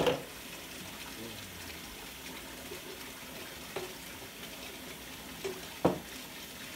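Kitchen faucet running a steady stream into water pooled in a stainless steel sink. A few short knocks sound over it, the loudest at the start and about six seconds in.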